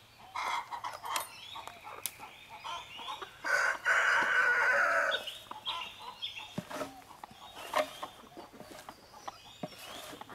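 Chickens clucking and squawking, with a rooster crowing once, for about a second and a half, near the middle. Scattered sharp knocks and clicks as the pen's gate is opened.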